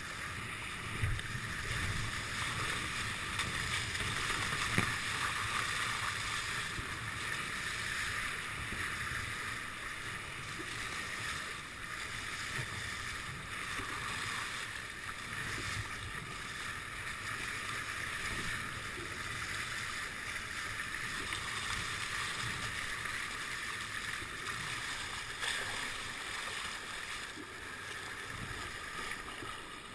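Water rushing and splashing along a Dagger Alchemy sea kayak's hull and paddle blade as it is paddled through small waves. It makes a steady hiss with a low rumble underneath.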